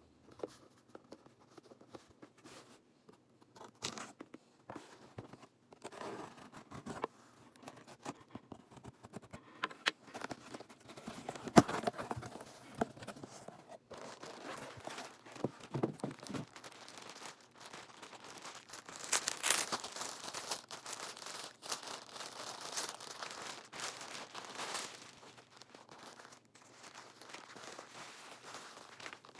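Cardboard shipping box being opened and handled: packing tape tearing, flaps rustling and scraping, with one sharp knock about a third of the way in. In the second half, thin plastic wrapping crinkles as a handbag is lifted out in its bag.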